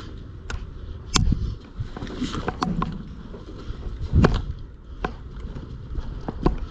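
Irregular sharp clicks and knocks, about a dozen, some with heavy low thuds, the loudest about a second in and about four seconds in, over a low rumble of movement.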